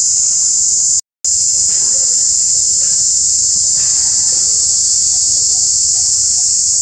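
Loud, steady high-pitched drone of a chorus of insects in the trees. The sound cuts out for a moment about a second in.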